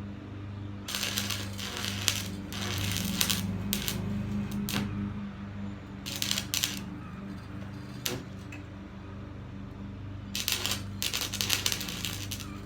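Arc welder humming steadily, set at 80 amps, with three spells of crackling arc as the electrode is struck, plus a single sharp click near 8 s. The arc catches only briefly each time instead of holding, the electrode sticking as he struggles to get the weld going.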